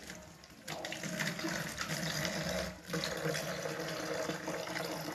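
Water pouring from a tilted metal bowl into a container, a steady splashing pour that starts under a second in, breaks off briefly about halfway and then goes on.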